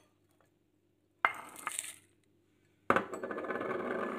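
Brittle smoked dried fish pieces dropped into a clay mortar: one sharp clink about a second in, then a dense crackling clatter of the pieces landing, lasting over a second near the end.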